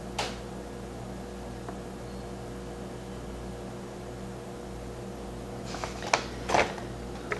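Steady low electrical hum of room tone, with a few brief soft noises about six seconds in.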